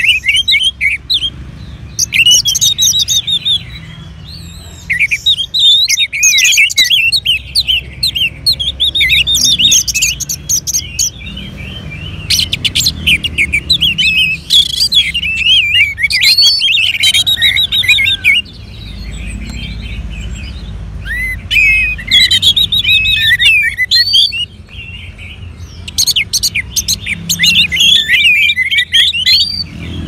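Orange-headed thrushes singing: rapid, varied whistled phrases in dense bursts, broken by short lulls several times, over a faint low steady hum.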